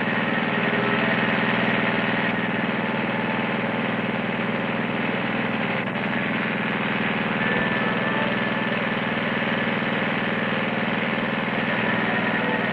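Gasoline lawn mower engine running steadily at an even pitch.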